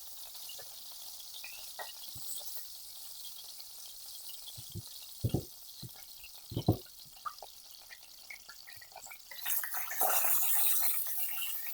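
Food sizzling in a frying pan, a steady hiss that grows louder near the end, with a few dull knocks of a utensil or pan about halfway through.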